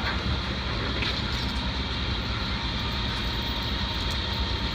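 A heavy truck engine running steadily, a low rumble with a steady hiss above it.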